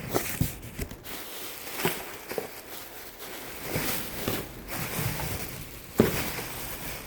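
Rustling and handling noises from boxes of packaged dresses being gone through, with scattered light knocks and a sharper knock about six seconds in.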